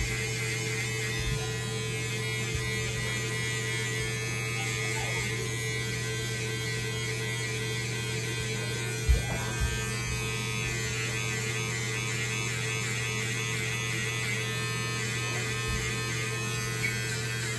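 Electric hair clippers running with a steady buzz while trimming hair at the nape and behind the ear. A single short knock about nine seconds in.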